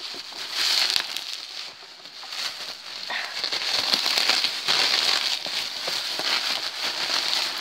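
Plastic bubble wrap and air-cushion packing being handled and pulled about, crinkling and crackling without a break.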